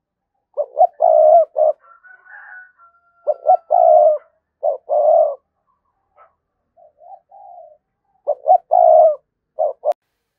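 Spotted dove (cu gáy) decoy bird cooing: three loud coo phrases, each a run of short clipped notes, with softer calls between them. This is the urging coo a decoy gives to draw wild doves in. A sharp click near the end.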